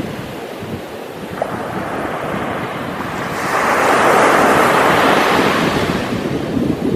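Sea waves washing on a shore: a continuous hiss of surf, with one wave swelling up about halfway through and easing off near the end.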